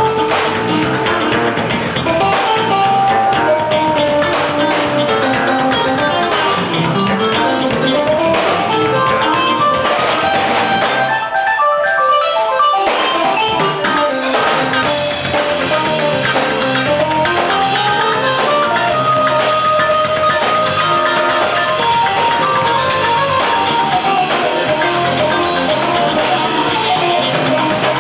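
Live rock-and-roll band playing an instrumental stretch: lead guitar soloing in single-note lines over bass and drum kit. The bass and drums drop out briefly a little before halfway.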